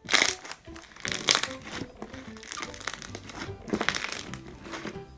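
Foam-bead slime being squeezed and worked by hand, crackling and popping in several bursts. Background music plays under it.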